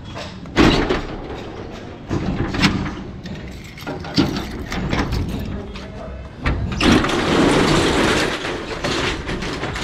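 Padlocks being unlocked at the foot of a corrugated steel roller shutter, with keys clinking and several sharp metallic knocks. About seven seconds in, the shutter rattles for a couple of seconds as it is rolled up, the loudest sound here.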